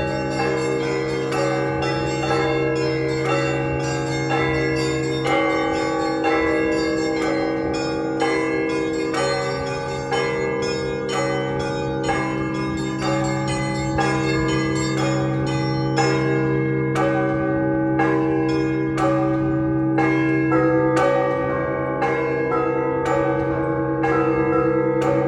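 Russian Orthodox festive bell ringing on a set of 48 church bells. Quick runs of strikes on the smaller bells, several a second, ring over the lingering hum of the larger bells.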